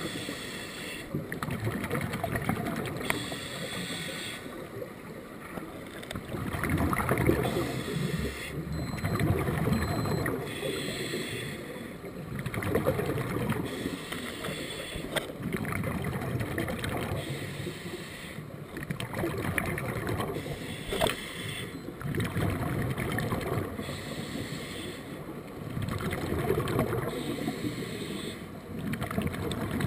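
Scuba diver breathing underwater through a regulator: an inhaled hiss alternating with a gurgling rush of exhaled bubbles, repeating every two to three seconds.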